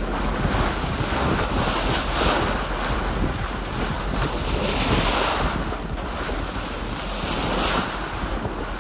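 Rushing water of a boat's bow wave mixed with wind buffeting the microphone: a loud, steady hiss that swells and eases irregularly.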